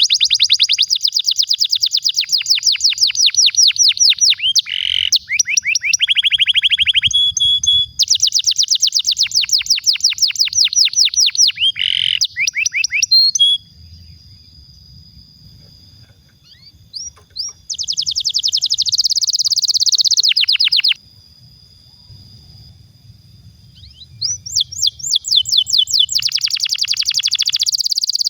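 Male domestic canary singing long rolling trills of rapid repeated high notes, in several long phrases. The song breaks off twice, about halfway and again about two-thirds of the way through, leaving a thin high held note before the trills resume.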